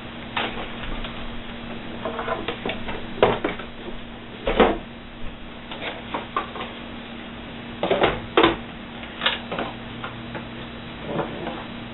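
Handling noise: irregular clicks, taps and knocks of small hard plastic objects being picked up and set down, over a steady low hum.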